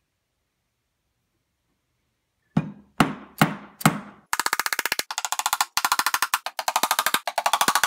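Wooden mallet knocking on plywood to drive a glued dowel joint home. Starting about two and a half seconds in, there are four separate knocks about half a second apart, then a fast run of rapid taps in short bursts.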